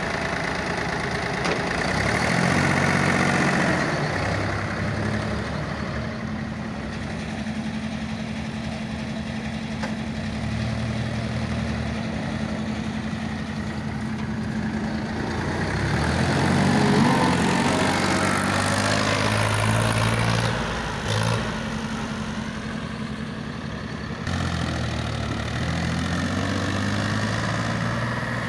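Powertrac ALT 4000 tractor's diesel engine running while it pulls a trailer loaded with bricks, the engine note rising and falling; it revs up hardest a little past halfway.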